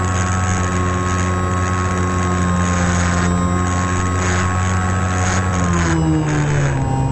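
Model airplane's motor and propeller running steadily, heard from on board with air rushing past the microphone; about six seconds in the motor slows and its pitch drops.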